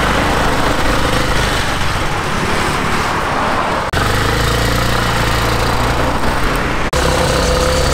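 Roadside traffic noise: cars passing and a motor scooter running close by, loud and steady with a brief break near the end.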